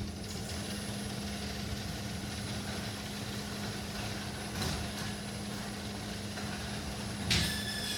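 Garage door opener motor running with the door rumbling along its track, a steady hum under it. A knock about halfway through and a sharper metallic clank with a brief ring near the end.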